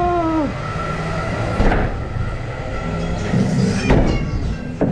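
Ghost-train ride car rolling along its track with a steady low rumble, and a few sharp knocks about two and four seconds in. A held tone that drops slightly in pitch ends within the first half second.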